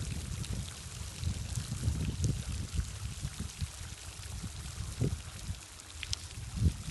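Hot tub water bubbling and gurgling: a steady churning with an irregular low rumble.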